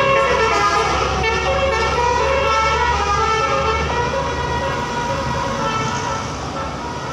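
Indonesian bus "telolet" musical air horn playing a quick tune of changing notes over the low rumble of the bus engine, growing gradually fainter over the last few seconds.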